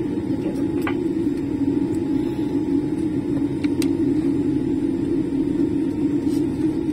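Steady cabin rumble inside a Boeing 787-8 airliner taxiing after landing, with a few faint clicks.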